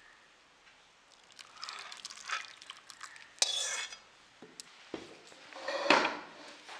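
A steel spoon scraping and clinking against a steel pot and bowl while thick fish curry is poured and spooned out, with the wet slop of the gravy. There is a run of scrapes and clicks, and two louder bursts about halfway and near the end.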